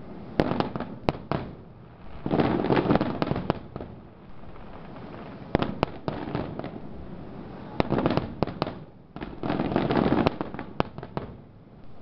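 Fireworks display: scattered sharp bangs of shells bursting, with dense bursts of crackling about two, eight and ten seconds in.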